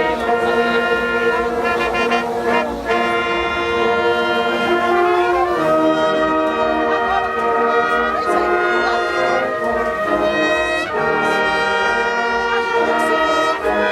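Brass orchestra of trumpets and trombones playing, with sustained chords that change every second or so and a few sharp percussion strokes.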